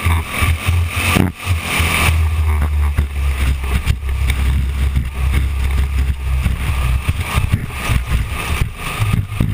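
Winged micro sprint car's engine heard onboard, running in a low steady drone with wind buffeting the microphone; the throttle lifts briefly about a second in, then the engine pulls steadily again.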